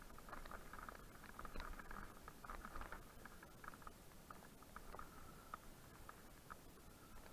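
Faint, muffled rattling and clicking of a mountain bike running fast down a rough, rocky forest trail, with many small irregular knocks from the bike jolting over stones and roots.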